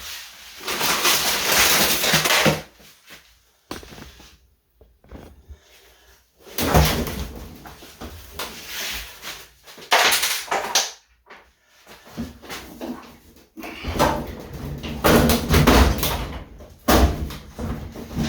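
Irregular clunks, knocks and scraping of hands working inside a washing machine cabinet, moving the drum and its shock absorbers in and out of their mounts, in several loud spells with short pauses between.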